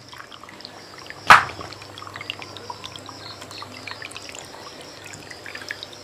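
Water trickling and splashing over the rocks of a small homemade waterfall fountain, with many scattered drips. About a second in there is one loud, sharp hit.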